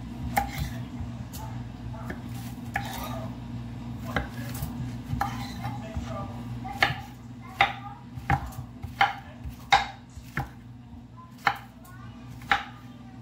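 Chef's knife cutting zucchini on a wooden cutting board: uneven slicing strokes at first, then a run of sharp knocks on the board about every two-thirds of a second as it is chopped into cubes, over a steady low hum.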